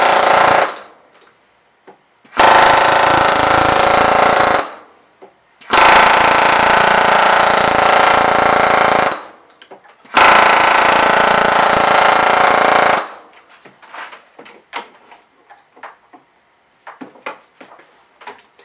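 Pneumatic air hammer flow-forming the flange of a thin sheet-aluminium wing rib over a form block. It runs in four long bursts of rapid hammering, each about one and a half to three and a half seconds. After the fourth burst only light scattered clicks and taps follow.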